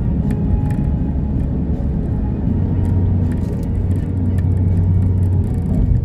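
Car driving on a road: a steady low rumble of road and engine noise.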